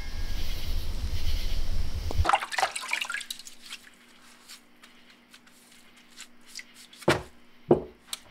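A deep low rumble for about two seconds, then water splashing and dripping as a knife is washed by hand in a plastic basin, with two louder sloshes near the end.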